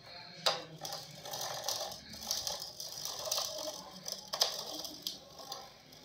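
Plastic stunt RC toy car being handled and set down on a concrete floor: irregular rattling and scraping of plastic, with a sharp click about half a second in and another near four and a half seconds.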